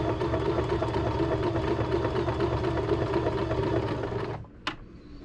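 Small electric sewing machine running steadily, stitching through a quilted pad, then stopping about four seconds in; a single click follows shortly after.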